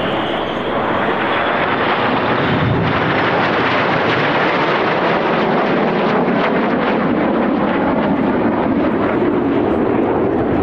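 BAE Hawk T1 jets in flight, their Adour turbofan engines giving a loud, steady roar. A high whine rises just as it begins.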